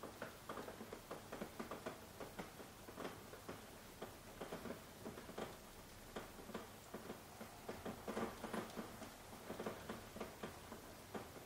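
Soft rain: many irregular drops tapping and dripping close by, over a faint steady hiss of rainfall.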